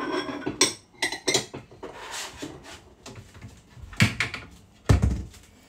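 Kitchen dishes and utensils clinking and knocking as food is prepared, a few sharp clinks with a little ringing, then two heavier thumps about a second apart near the end.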